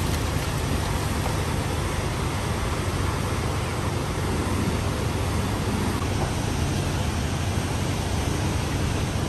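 Steady roar of car-wash machinery with a low hum underneath; the splashing and scrubbing at the wheel do not stand out.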